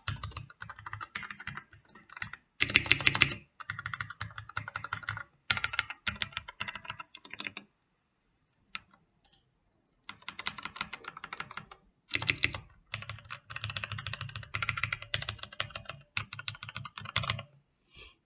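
Typing on a MAGEGEE MK-Box 65% mechanical keyboard with red linear switches and bottom foam: rapid runs of key presses, stopping for about two seconds in the middle apart from a couple of single keystrokes, then starting again.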